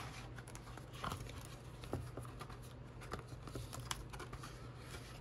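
Clear plastic planner cover being handled and slid onto a hardcover planner: faint plastic rustling with a few light clicks and taps, over a low steady hum.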